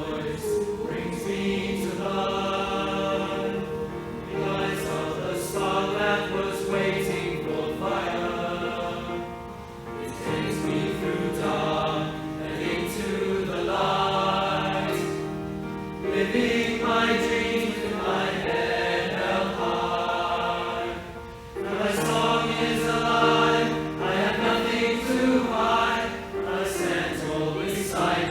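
A choir singing over held accompaniment chords, in phrases with short breaks about ten, sixteen and twenty-one seconds in.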